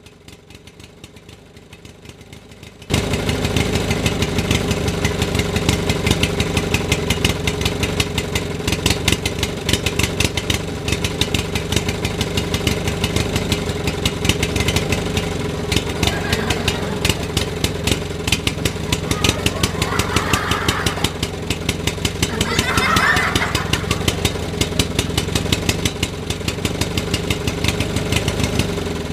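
An engine running steadily at idle with a fast, even pulse. It starts abruptly about three seconds in.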